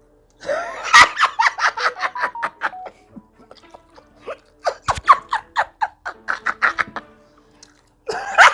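Uncontrolled laughter in three bouts of rapid, repeated 'ha-ha' pulses, over soft background music.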